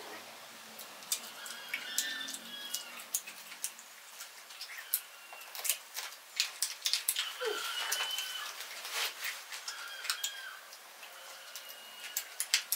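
Birds chirping in short, high calls over a scatter of sharp clicks and taps, with one lower call falling in pitch about seven and a half seconds in.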